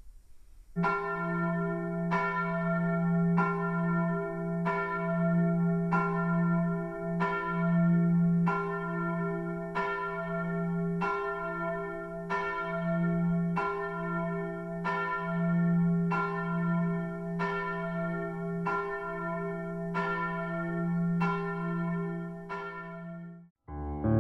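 A church bell tolling slowly, a single stroke about every 1.3 seconds, its low hum ringing on between strokes. It cuts off suddenly near the end.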